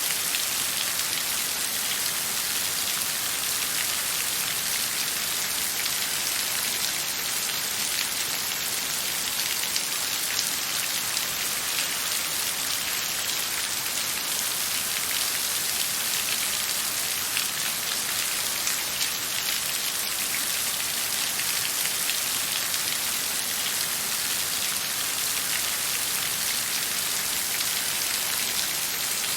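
Steady rain falling, an even hiss of many fine drop ticks with no thunder.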